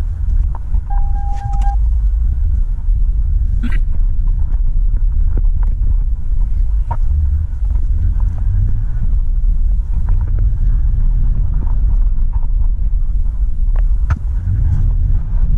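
Steady low rumble of the road and the 3.5-litre V6 heard inside a 2007 Toyota Sienna minivan's cabin as it drives. A short beep sounds about a second in, and a sharp click comes near four seconds.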